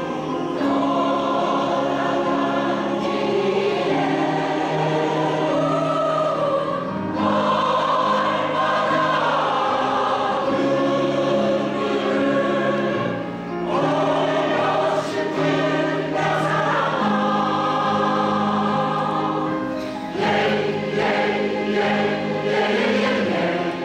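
A women's choir singing a Korean song in sustained phrases, with brief breaths between phrases about a third and halfway through and again near the end.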